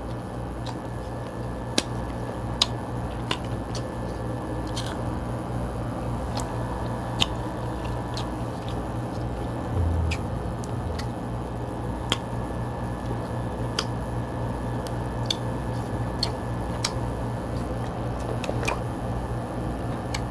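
Cooked king crab shell being picked apart by hand: scattered sharp clicks and cracks of shell with some squishing of the meat, over a steady low hum.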